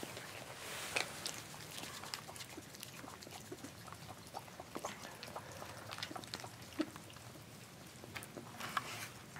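Young Virginia opossums eating dry food from a plastic dish and moving on straw: faint scattered crunches, clicks and rustles, with a few sharper clicks.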